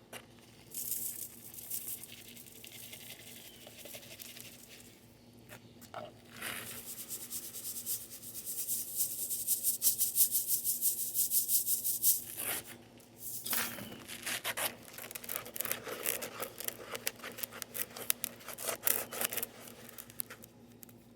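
Gritty scraping and rubbing of a small batch of wet concrete mix being stirred in a container, in runs of quick strokes that are heaviest around the middle, with a short pause before they pick up again.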